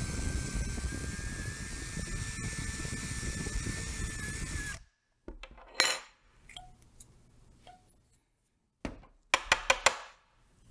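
Cordless drill running steadily with a small 1/16-inch bit as it drills into a rivet post of a Hot Wheels diecast car, its whine rising slightly in pitch before it stops suddenly about five seconds in. A few light clicks and taps of small parts being handled follow.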